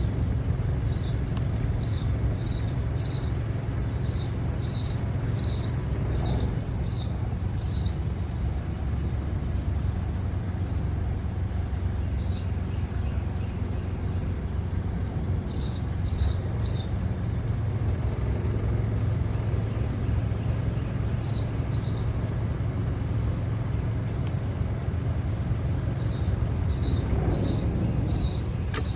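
Northern cardinals giving short, sharp chip notes, about two a second, in runs separated by pauses. Underneath is a steady low rumble of traffic.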